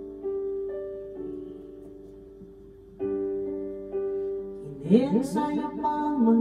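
Piano karaoke backing track playing slow held chords in an instrumental gap between sung lines, with a quick rippling run of notes about five seconds in.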